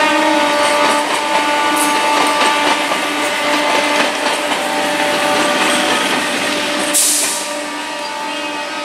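Indian Railways electric multiple unit (EMU) local train running past close by: steady wheel and running noise on the rails under a steady multi-toned electric hum. A short loud hiss about seven seconds in.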